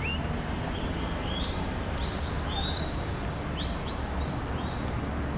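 Steady low rumble of street traffic, with a bird repeating short rising chirps over it, about two a second.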